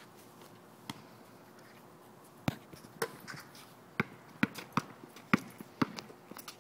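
A basketball bouncing hard on a court: two single bounces, then a run of dribbling at about two bounces a second in the second half.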